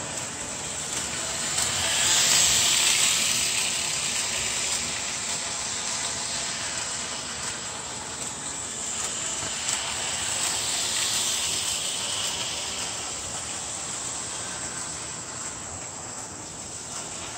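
LeMax Christmas village toy train running around its oval track: a steady whirring hiss from its motor and wheels that swells as it passes close, once about two seconds in and again around eleven seconds.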